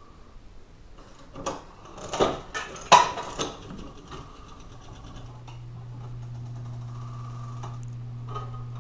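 Wurlitzer 600K jukebox's record-changing mechanism at work after a selection key is pressed: a run of clicks and clunks in the first few seconds, the loudest about three seconds in, then a steady low hum setting in about five seconds in as the mechanism runs and lifts a record toward the turntable.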